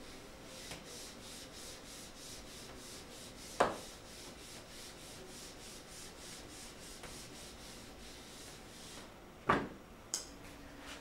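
Eraser wiping a whiteboard in quick, even back-and-forth strokes, about three a second, with a sharp knock about three and a half seconds in and another near the end.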